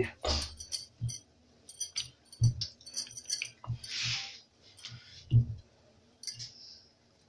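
Wooden rolling pin rolling poori dough on a marble rolling board (chakla), giving scattered dull knocks with light clicks and clinks. A short rustle about four seconds in as a rolled round is moved by hand.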